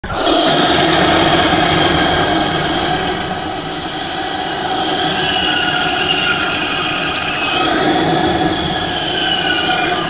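A designed horror monster sound effect: a continuous, rough, screechy sound made of many tones at once, starting abruptly and running without a break, with some of its pitches sliding slowly downward partway through.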